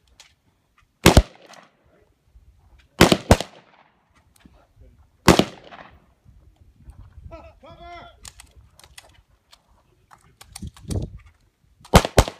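Gunshots: a quick pair about a second in, another pair about three seconds in, and a single shot a couple of seconds later. A voice calls out midway, and near the end a rapid string of shots begins.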